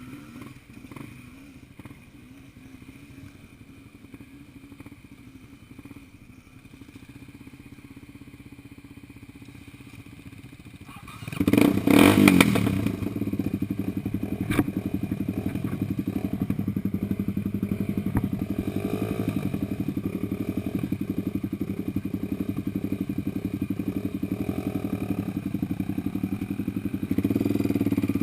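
Off-road vehicle engine running low and quietly, then about eleven seconds in it revs up sharply and keeps running loud and steady, with a further rise near the end, as it works its way up a hill.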